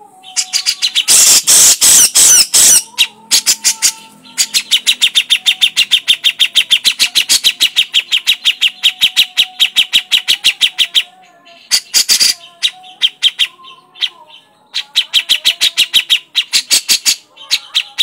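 Grey-cheeked bulbul (cucak jenggot) giving its harsh chattering 'crecetan' call: long runs of rapid, sharp, evenly spaced notes, several a second, broken by a few short pauses, loudest and harshest in the first few seconds.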